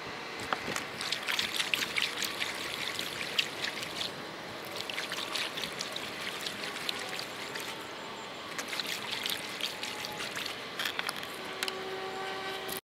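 Kayak paddle strokes: water splashing and dripping off the paddle blades in two spells, one starting about a second in and another past the middle. The sound cuts off suddenly at the very end.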